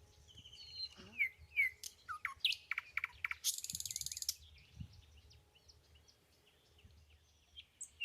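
Small birds chirping: a run of quick, down-sweeping whistled notes about a second in, then a short high buzzing trill, then quieter.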